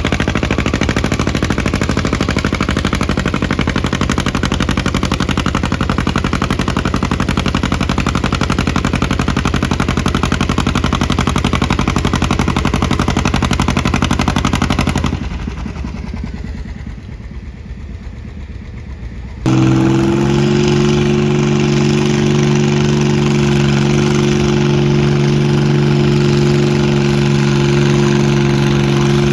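John Deere two-cylinder tractor engine labouring under load as it pulls the weight sled, a fast rapid popping. About halfway through the sound drops abruptly to a quieter engine for a few seconds. Then a second antique tractor engine comes in loud, with a steady, even note.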